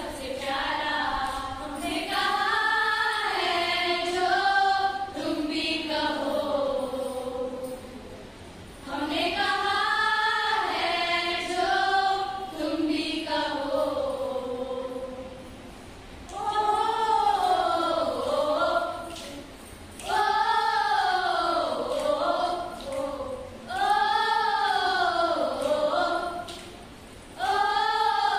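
Group of women singing a patriotic song together, in sung phrases of a few seconds with short breaks between them.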